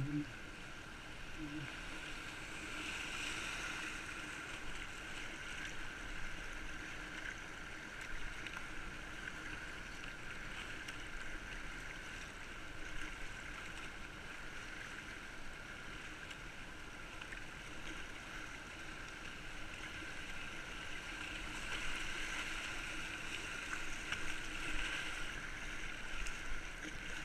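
Fast, high river water rushing and splashing around a whitewater kayak running a wave train, with a few brief louder splashes.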